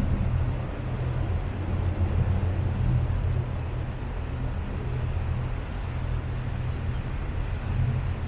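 River sightseeing boat's engine running at cruising speed, a steady low rumble heard from on board with an even hiss of water and air over it.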